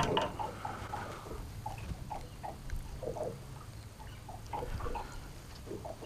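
Faint, irregular small water splashes and drips, several a second, as a hooked fish is handled and unhooked at the side of the boat.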